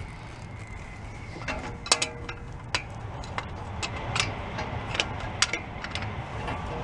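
Metal clicks and taps of large plumber's pliers against a brake caliper as its pistons are pressed back into their bores, a dozen or so irregular ticks over a low steady hum.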